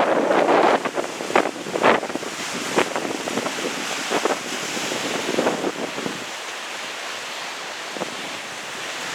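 Strong wind buffeting the microphone over the wash of waves, with short gusts or splashes breaking through. It is loudest in the first two seconds and eases off after that.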